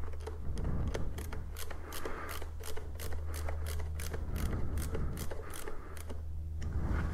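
Hand screwdriver driving screws back into a motorcycle's plastic panel: a run of sharp clicks, about four a second, that stops near the end.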